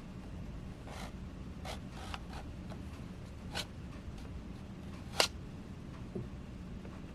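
Irregular light clicks and taps, spaced a second or so apart, with the sharpest one about five seconds in, over a steady low hum.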